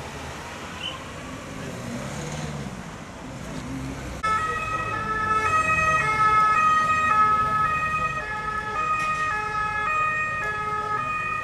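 Vehicle engines and traffic running. About four seconds in, an emergency siren cuts in suddenly and louder, alternating between pitches in steps, from the police escort clearing the road.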